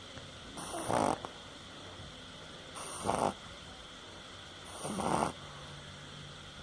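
Dog snoring in its sleep: three snores about two seconds apart.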